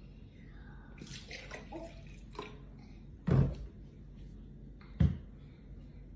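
Juice pouring and splashing from a plastic jug onto a glass and a wooden tabletop. Then come two heavy thumps about a second and a half apart, the loudest sounds, as of the jug being set down on the table.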